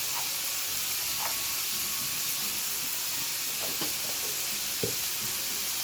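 Fried rice sizzling steadily in a hot pan as it is stir-fried, with a few light knocks, the clearest near the end.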